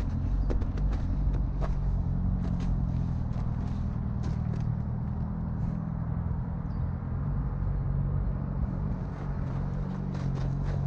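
Volvo EC460 crawler excavator's diesel engine running steadily under load, with scattered sharp clicks and knocks from the working machine, sparse in the middle and thicker near the end.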